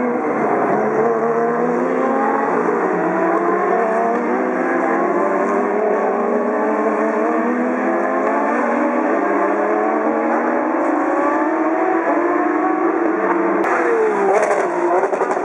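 Engines of a pack of Porsche 911 GT3 Cup race cars accelerating together. Several overlapping engine notes rise slowly in pitch as the cars pull away, and near the end the sound changes suddenly.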